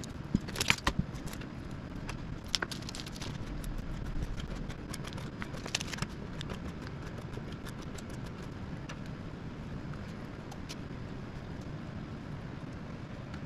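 Hands laying pepperoni slices onto bread pizzas on a wooden cutting board: a few light clicks and crinkles, most of them in the first six seconds, over a steady low room hum.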